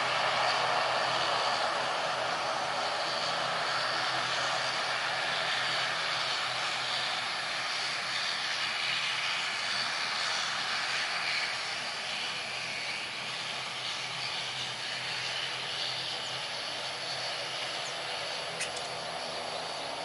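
ATR 72-500 turboprop airliner taxiing, its twin Pratt & Whitney PW127 turboprop engines and propellers giving a steady rushing drone. The sound drops a little about halfway through as the aircraft turns away.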